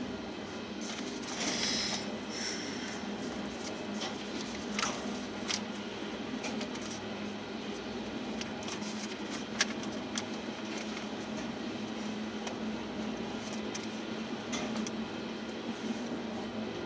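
Loaded aggregate hopper cars of a freight train rolling past: a steady rumble of steel wheels on rail, with scattered sharp clicks and a brief high-pitched squeal about a second and a half in.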